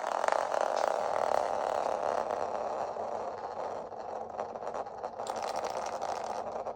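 Acorn spinning top whirring and scraping as it spins on a hard surface, a steady rasping whirr with fine ticking.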